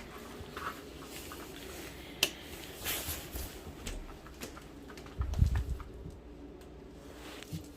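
Indoor handling noises: scattered small clicks and rustles, a sharp click a couple of seconds in and a dull thump a little past halfway.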